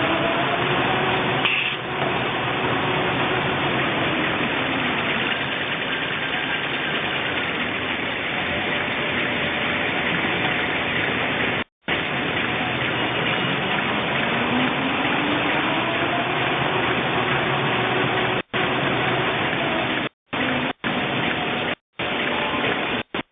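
Automatic toilet-paper roll cutting machine with a band saw running: a steady, loud mechanical noise with a faint tone that rises and then falls twice. The sound cuts out briefly several times in the second half.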